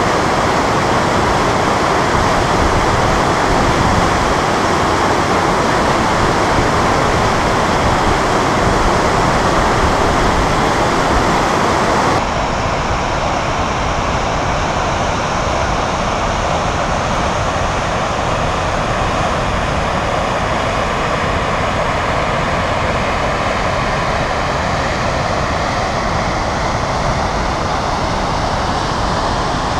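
A waterfall on a mountain river gives a loud, steady rush of water. About twelve seconds in, the rush changes abruptly to a duller sound with less hiss.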